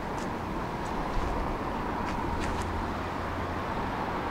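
Tram rolling slowly along its track, heard from on board: a steady rumble with a hum and a few faint ticks.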